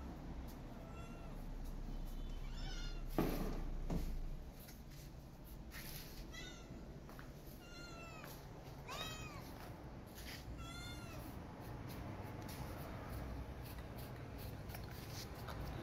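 Feral cat meowing, about five short meows each rising and falling in pitch, calling to be fed. Two sharp knocks a few seconds in are the loudest sounds.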